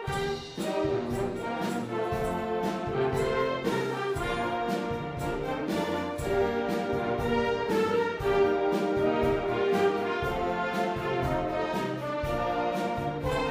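Band music led by brass, trumpets, horns and trombones, playing an instrumental passage of a Christmas carol medley.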